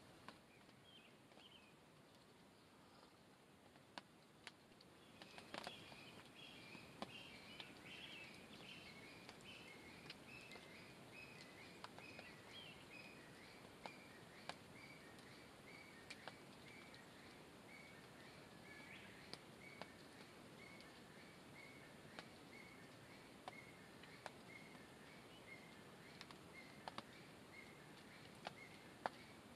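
Faint wood fire crackling in a small metal fire stand, with scattered sharp pops. From about five seconds in, an animal calls in a long series of evenly spaced chirps, about two a second, slowly falling in pitch and lasting nearly to the end.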